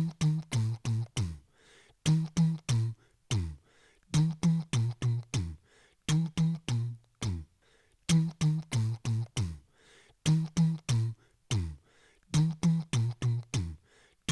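Beatboxed tom-tom fill: a man making short, pitched, thud-like tom sounds with his mouth into a microphone. The thuds step down from high tom to low tom in quick runs that repeat about every two seconds.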